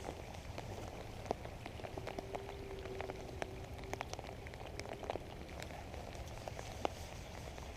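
Steady rain falling, with many irregular sharp drop hits close by over the patter, and a faint steady hum for a couple of seconds in the middle.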